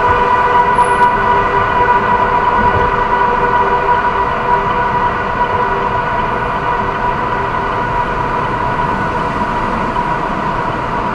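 A vehicle horn sounding continuously in a tunnel: one steady chord held without a break over steady road noise, growing slightly fainter toward the end. The uploader takes it for a stuck horn button.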